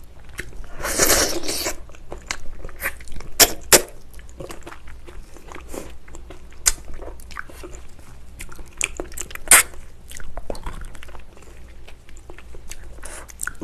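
Close-miked wet chewing and lip smacking on gelatinous, collagen-rich braised ox foot in spicy sauce, full of small sticky clicks. About a second in there is a louder, noisier stretch lasting about a second, and a few sharp clicks stand out later.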